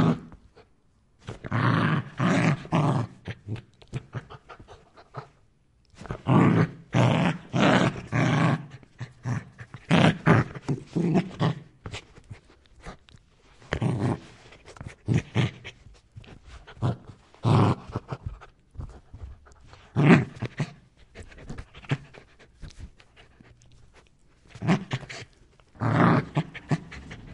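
An angry dog barking aggressively in volleys of rapid barks with growling between them, pausing for a second or two between volleys.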